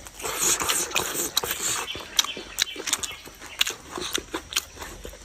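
Crunching and chewing on bones: an irregular run of sharp cracks and short crunches.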